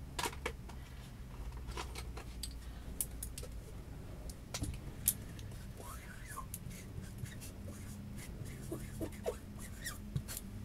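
A freight train of autorack cars rolling slowly past, with a steady low rumble and scattered metallic clicks, ticks and brief squeaks from the cars.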